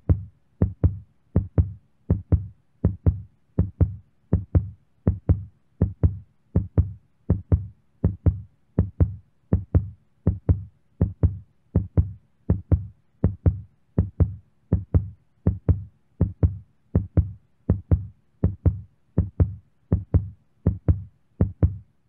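Heartbeat sound effect: a steady double thump, lub-dub, repeating a little more than once a second, deep with a short click on each beat.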